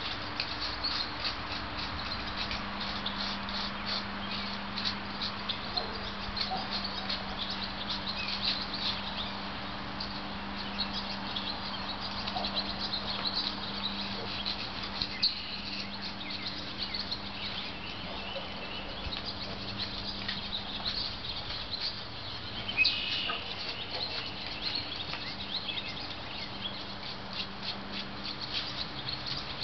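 Small birds chirping over and over above a steady low hum, with one louder call about three-quarters of the way through.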